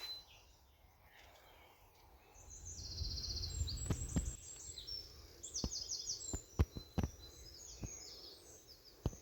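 Woodland birds singing, with fast high trills and chirps overlapping from a few seconds in. A low rumble and several sharp clicks come through as well, the clicks being the loudest sounds.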